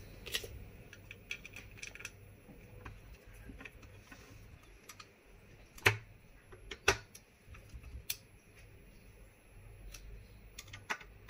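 Hand screwdriver driving small screws through a graphics card's circuit board into its cooler, making scattered light clicks and ticks of the bit on the screw heads. Sharper clicks come about six and seven seconds in, and a quick run of them near the end.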